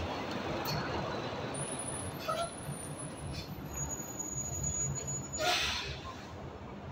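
Semi truck running, a steady rumble, with a short hiss of air about five and a half seconds in.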